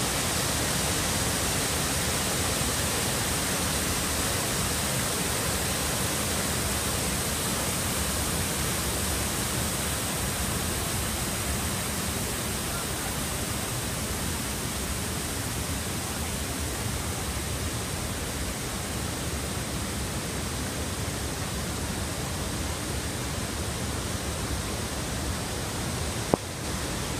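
Steady rush of river water pouring over a low weir and running over rocks, an even noise with no pauses. One sharp click sounds near the end.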